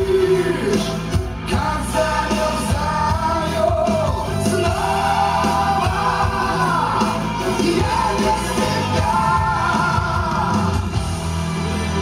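Music: a slow song with a long-held, wavering melody line over steady low bass notes.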